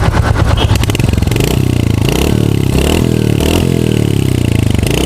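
Royal Enfield Hunter 350's single-cylinder engine idling with a fast, even exhaust beat, then given light throttle so its pitch rises and falls several times from about a second and a half in.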